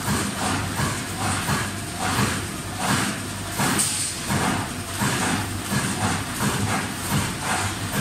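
Cable tray roll forming machine running as perforated steel sheet feeds through its forming rollers: a steady mechanical hum with a high whine and irregular metallic clatter.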